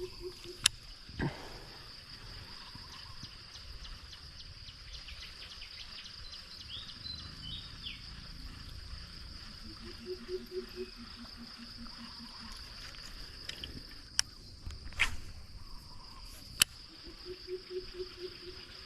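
Steady high-pitched chorus of insects, with a few sharp clicks and, now and then, a short run of low pulsing calls.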